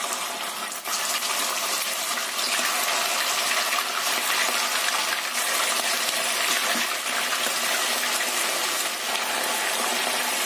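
Marinated chicken pieces sizzling steadily as they fry in hot oil in a pan, a dense crackling hiss. The sizzle swells just under a second in as more pieces are laid into the oil.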